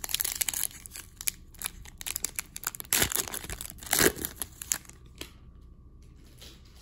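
A foil trading-card pack being torn open and crinkled by hand: a run of crackling tears, the loudest about three and four seconds in.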